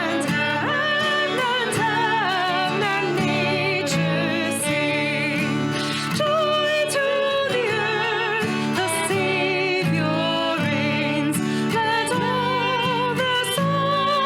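A worship song sung live by the church music team, with voices singing held, wavering notes over steady instrumental accompaniment.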